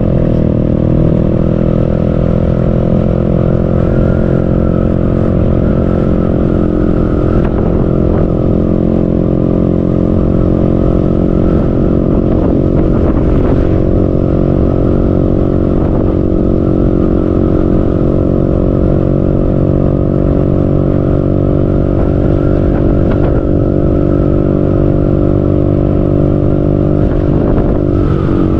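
Motorcycle engine running at a steady cruising speed, its pitch holding almost level, with wind rumble on the microphone.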